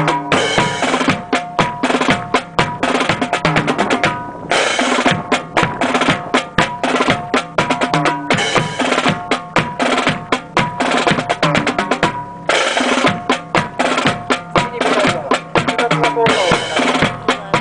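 Marching drum cadence: rapid snare drum beats and rolls over steady bass drum strokes, keeping time for a drill squad marching with rifles, with a few held tones and short stretches of bright hiss between the beats.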